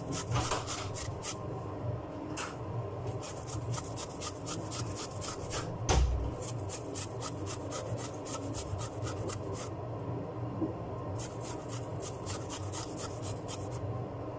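Fresh ginger being grated on a small hand grater: quick, repeated rasping strokes. One louder knock comes about six seconds in.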